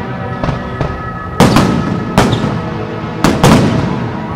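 Fireworks shells bursting in a string of sharp bangs, about seven in four seconds, the loudest ones about a second and a half, two, and three and a half seconds in. Background music with sustained notes plays underneath.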